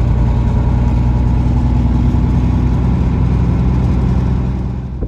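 Peterbilt 379 semi truck's diesel engine running at a steady low drone, heard inside the cab with road noise; the sound fades out near the end.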